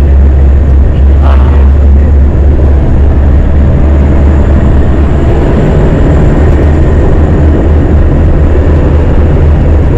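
A tour jeep driving along, its engine and road noise a loud, steady low rumble.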